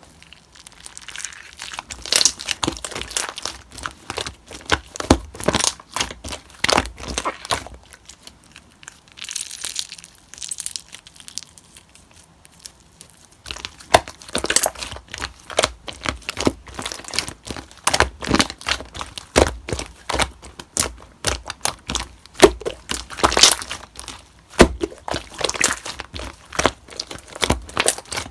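Slime being squeezed, stretched and pressed by hand, giving dense crackling clicks and pops, with a quieter lull near the middle.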